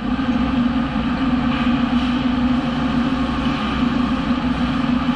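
Machining centre running a long vibration-damped boring bar in a cast iron workpiece: a steady machining noise with a strong, even low hum.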